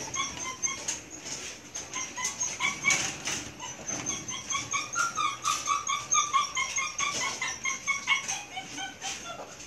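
Six-week-old Belgian Malinois puppies whining and squeaking in a rapid string of short, high cries as they crowd and jostle at a milk bowl, with scattered light clicks and knocks.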